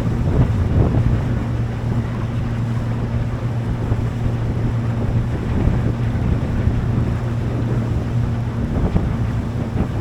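Boat engine running with a steady drone, with wind buffeting the microphone and water noise from the hull.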